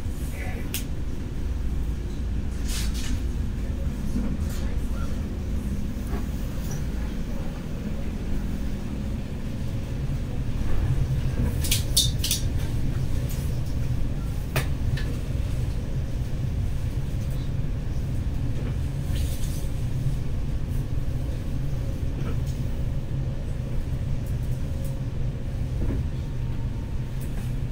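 Inside the passenger cabin of a Stadler FLIRT electric multiple unit under way: a steady low rumble of wheels and running gear, growing stronger about a third of the way in as the train gathers speed. A few short sharp clicks and knocks stand out, a quick cluster of them near the middle.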